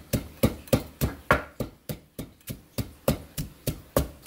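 Wooden pestle pounding fresh chilies with salt and MSG in a mortar, a steady run of thuds about three a second; the salt helps crush the chilies into a fine paste.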